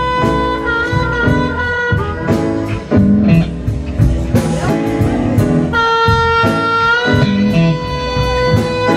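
Live blues band playing: blues harmonica cupped to a hand-held microphone holding long, bending notes over electric guitar and drums.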